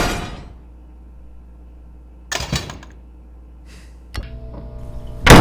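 Replaced foley in a small room: a few scattered knocks, then a sharp click about four seconds in followed by a steady electric hum, and near the end a loud, heavy slam of a head being smashed onto a table.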